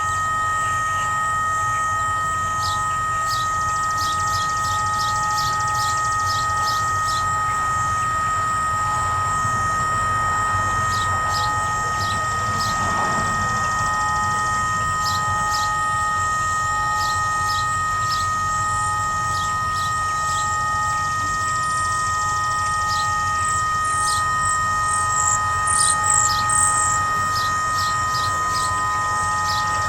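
A Whelen WPS-3016 electronic tornado siren giving out a steady buzzing tone instead of its test signal. It is malfunctioning, perhaps, as the owner guesses, because it cannot rotate to its position. Birds chirp over it, loudest about 25 seconds in.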